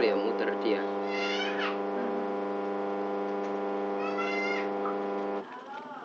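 Washing machine's electric motor humming steadily on mains power, then cutting off suddenly about five seconds in. Two short high chirps sound over the hum.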